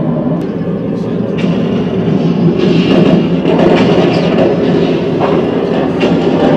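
Simulated in-flight noise of a Horsa glider cabin played through an exhibit's sound-effects system: a steady, heavy rumble with scattered light rattles and clicks.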